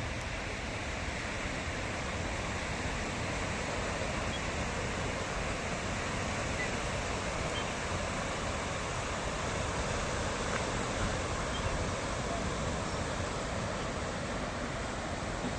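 Sea surf washing onto a beach, a steady noisy wash of breaking waves without distinct single crashes.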